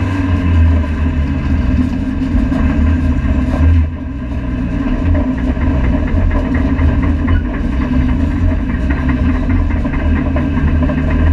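Honda Civic FD2 race car's four-cylinder engine at low revs, heard from inside the stripped cabin. Its pitch rises and falls gently as the car creeps along at low speed.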